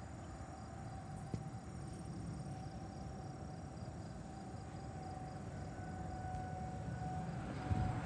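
Distant outdoor tornado warning siren sounding a faint, steady tone for a scheduled siren test, with insects chirping faintly in the background.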